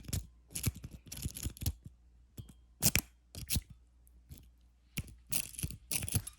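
A city rake scraping and clicking against the pins in the keyway of a five-pin padlock under tension: irregular runs of metal scratching and small clicks, with two louder sharp clicks about three seconds in.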